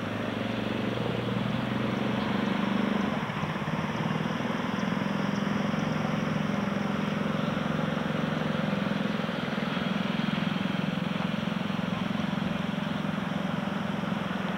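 Steady drone of a car's engine and road noise, a low hum that stays even throughout.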